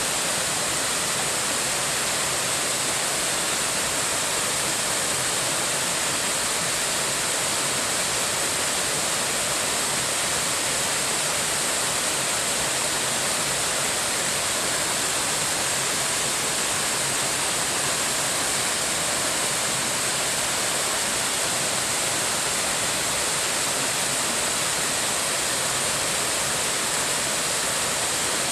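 Waterfall rushing steadily, swollen after heavy rain, a dense even roar of falling water.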